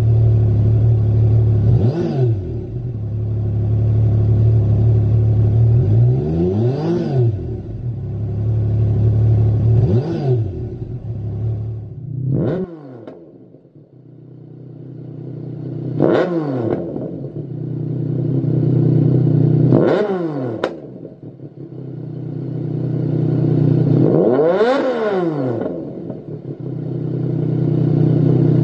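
Yamaha MT-09 Tracer's 847 cc three-cylinder engine idling and being blipped, each rev rising and falling quickly. For about the first 13 seconds it runs through the stock exhaust, with four revs. After a brief drop it runs through a Lextek XP8C carbon aftermarket silencer, with several more revs; the one near the end is the longest.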